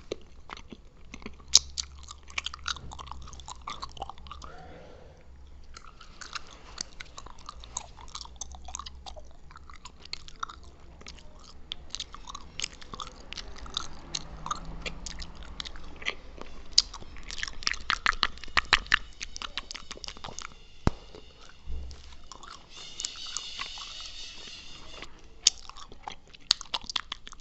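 ASMR mouth sounds while chewing gum: dense, irregular wet clicks and smacks of the lips, tongue and gum, with a brief higher rasping sound near the end.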